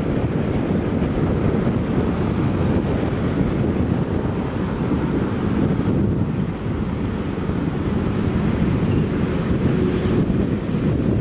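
Freight train cars, covered hoppers and boxcars, rolling past on the rails: a steady, low rumble of steel wheels on track.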